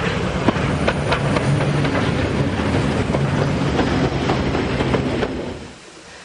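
Narrow-gauge steam train rolling slowly past close by, its coaches' wheels clicking irregularly over the rail joints. The noise drops away about five and a half seconds in.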